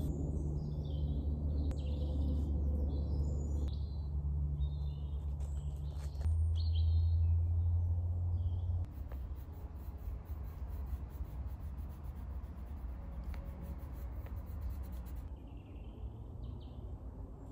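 Small songbirds chirping and singing in woodland over a steady low rumble. The birdsong thins out in the middle and picks up again near the end.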